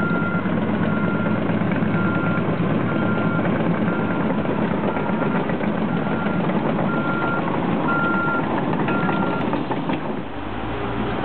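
Reversing alarm on a heavy construction machine beeping about once a second, ten beeps that stop near the end, over the steady running of its diesel engine. The engine note drops and changes just after the beeping stops.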